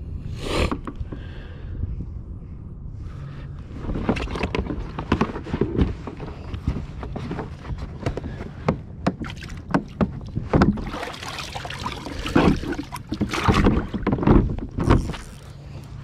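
Water splashing and irregular knocks and bumps against the hull of a Hobie Outback kayak as a hooked fish is fought alongside, getting busy about four seconds in and continuing until shortly before the end.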